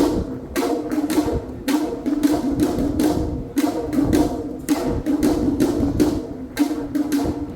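Awa Odori accompaniment band playing: sharp percussion strokes about twice a second over a sustained melody line, with the deep drums sparse for most of the stretch and coming back in just after.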